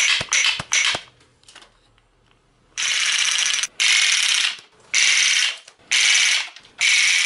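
Wooden rubber band machine pistol firing: three short clattering bursts, a pause of about two seconds, then five bursts of nearly a second each, a fast rattling run of clicks as the mechanism releases band after band on full auto.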